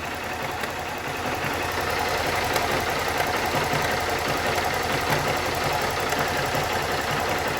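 Honda CG 160 Start's single-cylinder four-stroke engine idling hot in neutral, with a light rapid 'tec, tec' ticking over the running. The owner puts the tick down to a worn cam chain tensioner lifter rather than to internal engine wear.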